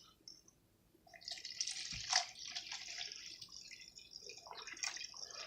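Water being poured from a bottle to mix a powdered drink: a trickling pour that starts about a second in and keeps running.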